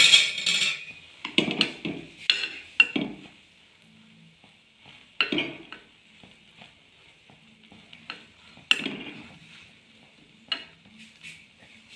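Bread slice with an egg paste frying in ghee in a metal pan, a steady sizzle, broken by a plastic spatula pressing the toast and scraping and knocking against the pan several times, loudest right at the start.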